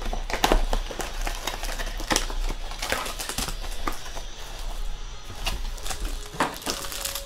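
Irregular light clicks and taps of trading cards and packs being handled on a table, a few per second, over a low steady hum.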